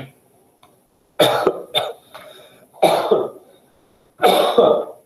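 A man coughing four times in short bursts spread over about three seconds.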